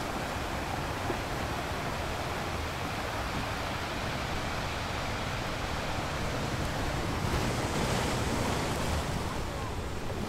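Ocean surf breaking and washing on a beach, a steady rushing wash.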